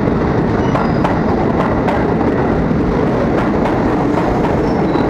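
Jakarta KRL commuter electric train running past close along the platform: a loud, steady rolling rumble with repeated sharp clicks as the wheels cross rail joints.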